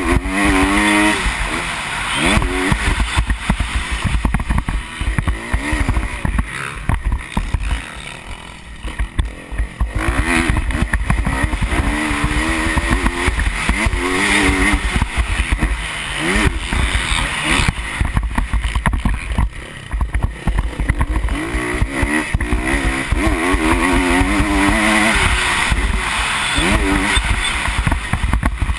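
Motocross dirt bike engine revving hard up and down through the gears, heard from a camera on the rider, with the throttle shut off briefly about eight seconds in and again around twenty seconds in.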